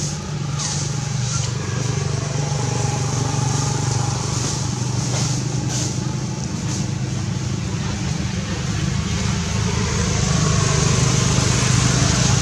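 Steady low engine hum of a motor vehicle running, swelling a little near the end.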